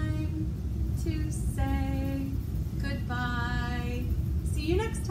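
A woman singing a simple goodbye song unaccompanied, in a few long held notes with short breaks between them, over a steady low rumble.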